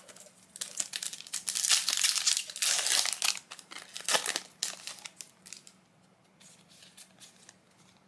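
Foil booster pack wrapper crinkling and tearing as it is pulled open, a dense crackle lasting about four seconds. After that come only light ticks of the cards being handled.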